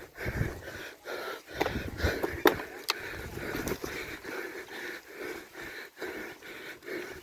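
A cross-country mountain biker breathing hard, panting in a steady rhythm of about two breaths a second. A few sharp clicks and knocks come through around the second and third seconds.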